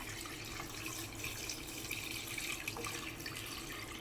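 Chicken broth pouring through a strainer as a steady trickle and splash of liquid.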